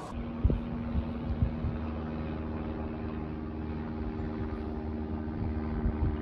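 An engine running at a steady speed, a constant low hum with a few low bumps.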